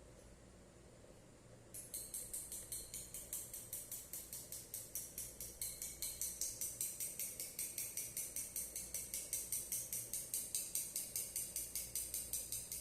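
Hand whisk beating rapidly in a bowl, a fast even rhythm of bright, jingly strokes at about four to five a second that starts abruptly about two seconds in and grows a little louder.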